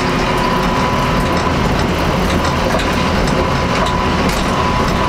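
Massey Ferguson 3075 tractor's diesel engine running steadily under way on the road, heard from behind the cab, with a steady high whine and scattered light rattles.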